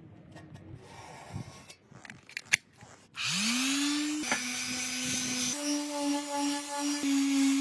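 Soft rubbing and a few clicks of hand work, then a small electric power tool spins up about three seconds in. It settles into a steady whine with a hiss above it, and the note dips slightly now and then.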